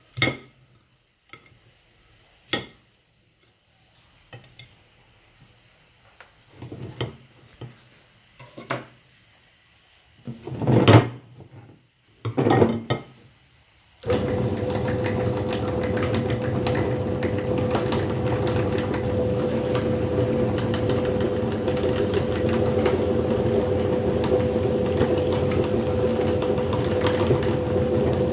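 Knife cutting bitter melon on a glass plate: a string of separate knocks and scrapes against the glass. About halfway through, an electric meat grinder starts suddenly and runs with a steady motor hum as the bitter melon goes through it.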